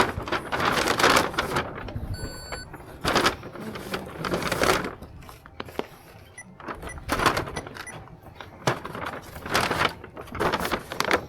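Checkout-counter handling: repeated rustling and clattering as purchases go into a plastic bag, with a short electronic beep about two seconds in, typical of a card reader or register.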